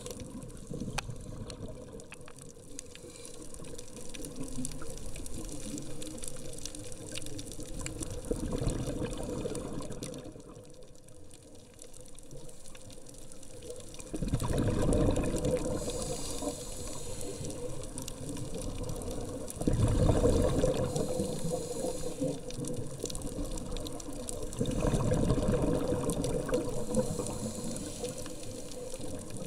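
Underwater sound of a scuba diver breathing through a regulator: a swell of exhaled bubbles about every five to six seconds over a steady watery hiss.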